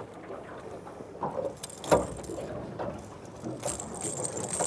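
Scattered knocks and light metallic clinks of gear being handled in a small aluminium boat, with one sharper knock about two seconds in and a brief jingle near the end.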